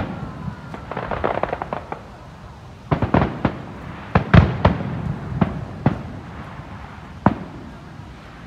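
Aerial fireworks shells bursting, heard from far off: about ten sharp bangs at irregular intervals, bunched in the middle with one more near the end, and a rapid run of small crackles about a second in.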